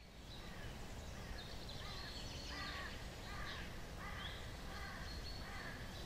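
Birds calling repeatedly, a short call about once a second, over a steady low rumble of outdoor ambience.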